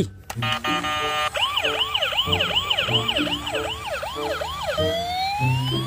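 Emergency siren in ambulance style: a fast yelp of quick repeating pitch sweeps, changing near the end to a slower rising wail.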